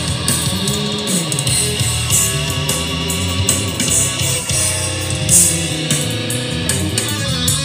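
Guitar-led rock music played back through a new PA speaker cabinet during a sound-system test.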